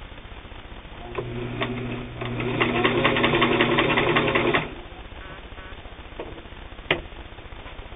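Singer 328K sewing machine running and stitching through fabric: a steady motor hum with a rapid, even needle clatter that gets louder and faster partway through, then stops suddenly. A single sharp click follows a couple of seconds later.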